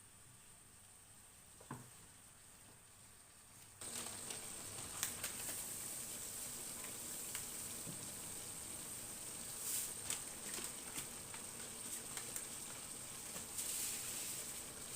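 Vegetable and chicken stir-fry sizzling in a pan. The sizzle starts suddenly about four seconds in and goes on steadily, with scattered crackles and pops.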